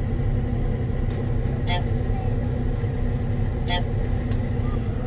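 Combine harvester's engine running steadily as the machine is driven, a low rumble with a faint steady whine above it. A short, sharp chirp repeats about every two seconds.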